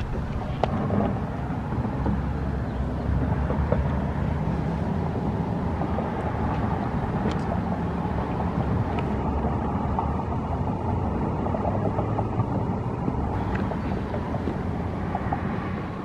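Steady low outdoor rumble of background noise, such as distant traffic; no siren is sounding.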